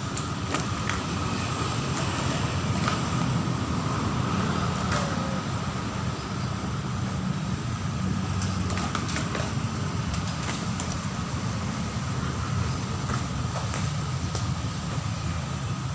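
Steady low rumble of road traffic, with faint short high chirps or clicks now and then.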